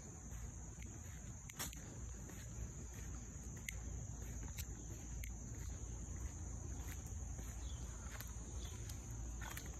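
Steady, high-pitched insect chorus droning without a break, with scattered light clicks and footsteps from someone walking on concrete.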